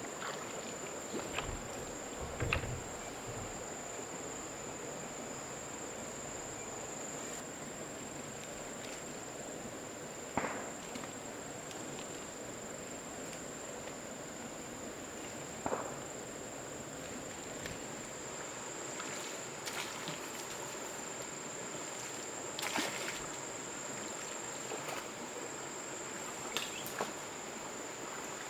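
Steady high-pitched insect buzz, with a few short knocks now and then.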